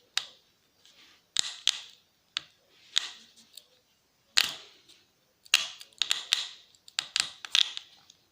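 Screwdriver working at a laptop hard drive's magnet bracket and steel screws in the aluminium casing: about a dozen irregular sharp metal clicks and short scrapes as the stiff part is levered at.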